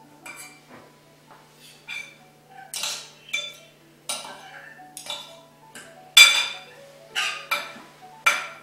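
Knife and fork scraping and clinking against a ceramic dinner plate while cutting food: about a dozen sharp, separate scrapes, the loudest about six seconds in.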